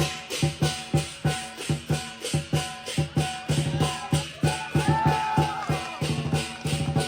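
Chinese lion dance drum and cymbals playing a fast, driving rhythm, deep drum beats with a bright metallic clash on the beats, and a short held tone about five seconds in.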